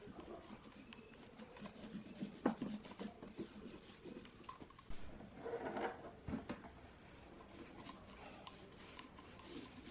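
Faint rubbing and scraping of hand work, with scattered light clicks, a sharp knock about two and a half seconds in, and a louder scrape just after the middle.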